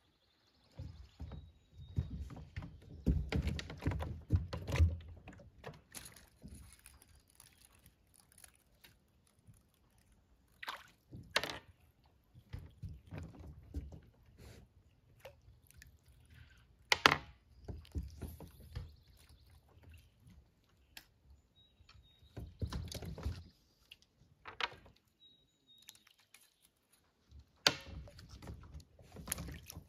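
Irregular knocks, thunks and handling noises in a small boat while fishing, with water sloshing. Two sharp clicks stand out, one about halfway through and one near the end, and a faint high tone sounds a few times.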